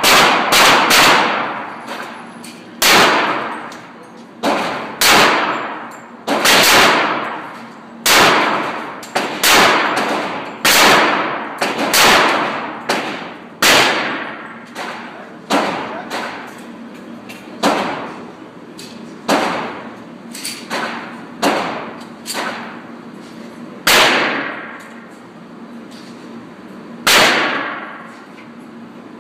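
A handgun being fired at a shooting range, about twenty shots at uneven intervals, each with a long ringing tail.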